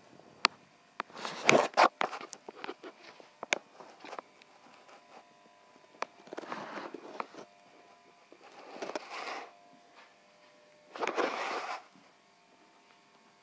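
Footsteps and shoe scuffs with rustling handling noise from someone walking around, in four short bursts with a few sharp clicks between them.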